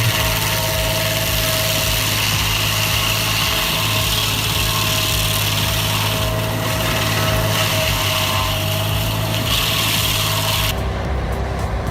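A machine's engine running steadily at constant speed under a thick, even hiss, changing abruptly near the end.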